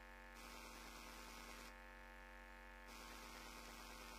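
Near silence with a faint, steady mains hum and a faint hiss that drops out for about a second in the middle.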